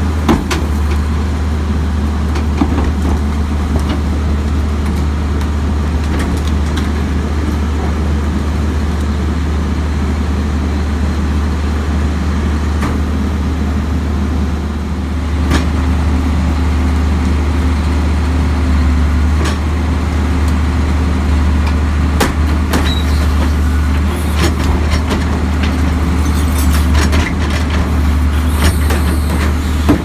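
Crane Carrier garbage truck's diesel engine running steadily, with sharp metal clanks and bangs as wheeled carts are hooked onto the Leach rear-loader's tippers and dumped into the hopper. The engine grows a little louder about halfway through and stays there.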